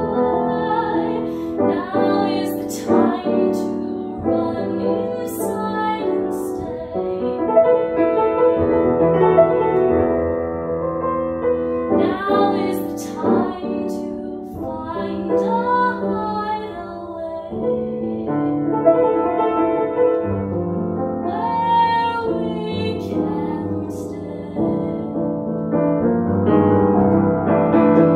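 A woman singing a slow ballad while accompanying herself on a grand piano.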